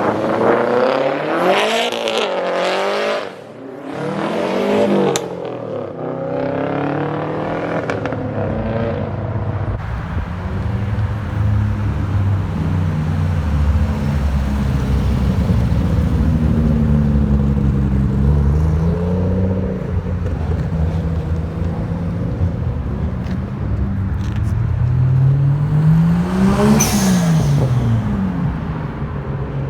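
Car engines revving: several quick rev blips rising and falling in pitch over the first few seconds, then a deep engine running with slow swells in pitch, and one sharp rev up and down near the end.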